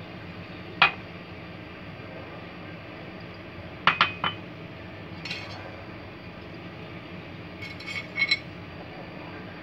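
A spoon clinking sharply against a mixing bowl as dry ingredients are tipped in: once about a second in, three quick clinks about four seconds in, a fainter one after five seconds and a short cluster near eight seconds, over a steady low hum.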